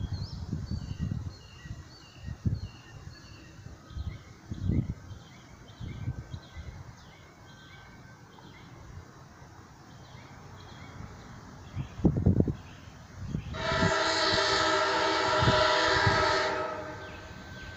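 A Virginia Railway Express commuter train's locomotive horn sounds one long chord-like blast of about three seconds, beginning around three-quarters of the way through. Before it, a level-crossing warning bell dings faintly, about two dings a second. Low wind rumble buffets the microphone.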